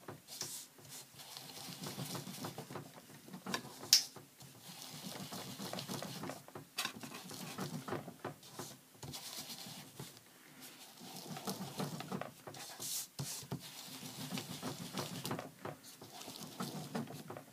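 Foam ink applicator rubbing and dabbing over paper and die-cut gears, a steady scuffing with short pauses and one sharp knock about four seconds in.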